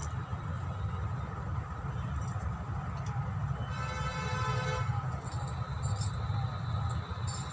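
Steady low rumble of background traffic, with a single vehicle horn toot lasting about a second, about four seconds in. Faint clicks follow.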